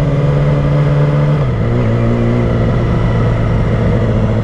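Sportbike engine running at low revs while riding slowly, over a steady rush of wind and road noise; the engine note drops a little about a second and a half in, then holds steady.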